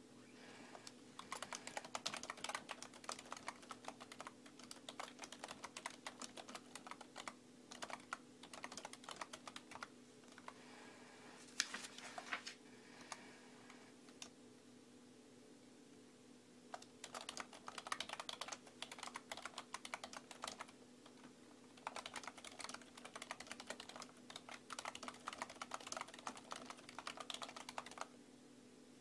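Typing on a computer keyboard: runs of rapid key clicks lasting several seconds, broken by pauses of a second or two, over a faint steady hum.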